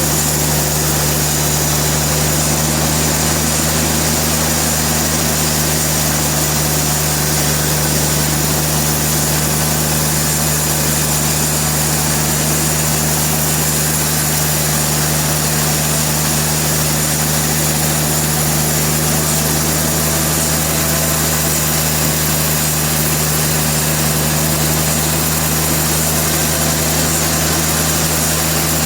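Sawmill machinery running steadily: a constant loud drone with a low hum and an even rushing noise, unchanging throughout, with no cut starting or stopping.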